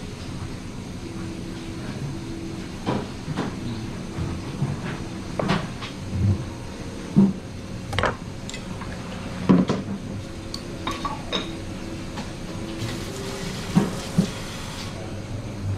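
Irregular knocks and clicks of a chef's knife and a plate being handled on a cutting board, a dozen or so scattered over the stretch, over a steady background hum.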